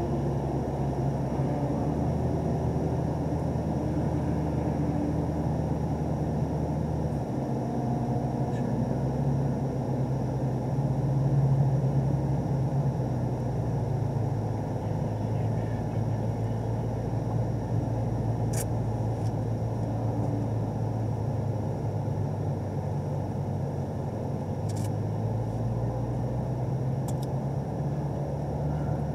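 2017 Camaro ZL1's supercharged 6.2-litre LT4 V8 running low, near idle, at about 1,000 rpm as the car rolls slowly, with a steady low hum. A few faint sharp ticks sound in the second half.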